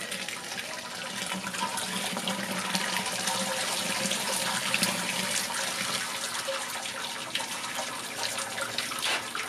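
Hot liquid, recirculated wort or sparge water, pouring steadily from a hose and splashing into a stainless steel brew pot during the mash-out.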